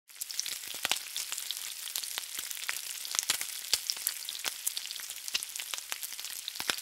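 Food frying in hot oil: a steady high sizzle with frequent sharp pops and crackles.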